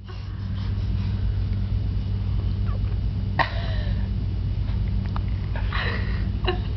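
A baby gives a short high squeal about three and a half seconds in, and makes a breathy vocal sound near the end, over a steady low hum.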